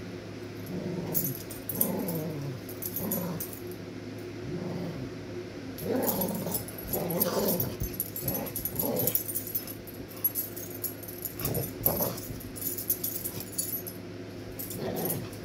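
Two dogs play-fighting, growling and grumbling at each other in several short bouts, the longest about six seconds in, with scuffling on the bedding between them.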